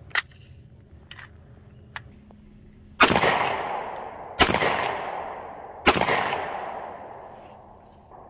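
Three single gunshots from a compact carbine, about a second and a half apart, each trailing a long echo that fades away. A few light clicks come before the first shot.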